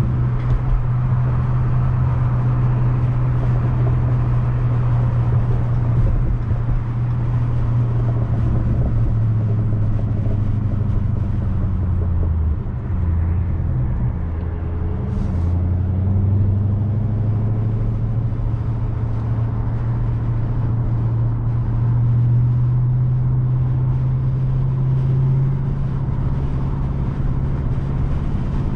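2020 Dodge Charger Scat Pack's 392 Hemi V8, with its mid muffler deleted, running on the road with a steady deep exhaust drone. Around halfway through the engine note drops in pitch for a few seconds, then climbs back and holds steady.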